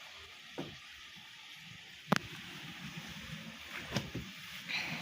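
Twin-tub washing machine draining its rinse water, a steady faint rushing, with a sharp knock about two seconds in and a softer one near four seconds.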